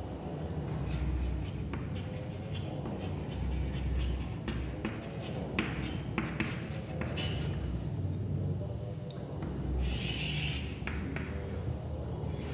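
Chalk writing on a chalkboard: short scratches and taps as letters are formed, with a longer scrape near the end as a line is drawn.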